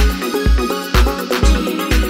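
Background music with a steady kick-drum beat about twice a second and a melody over it.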